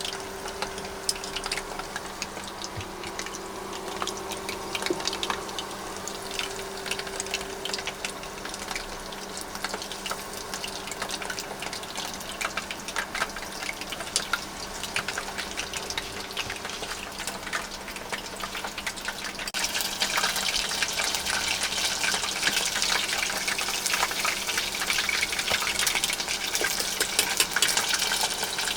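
Karaage (chicken pieces) deep-frying in hot oil: a steady sizzle made of many fine crackles, which grows louder and brighter about twenty seconds in.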